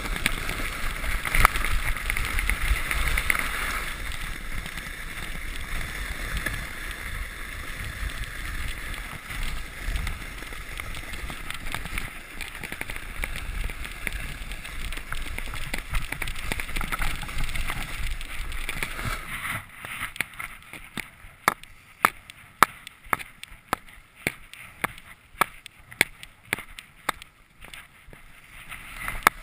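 Sled sliding fast over packed snow: a steady rushing and scraping hiss. A little after halfway the rush dies down, and a run of sharp clicks follows, two or three a second.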